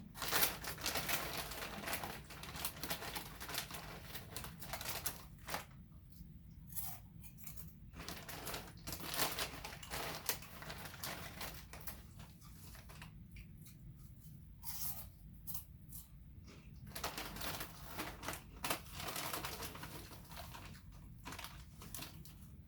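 Crunchy oven-baked barbecue potato chips being chewed, crackling crunches coming in bursts of a few seconds with short pauses between.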